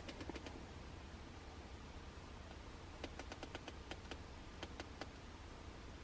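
Faint light clicks in quick runs, a few near the start and a longer string about three to five seconds in, from hand tools fastening an aftermarket steering wheel to its hub adapter.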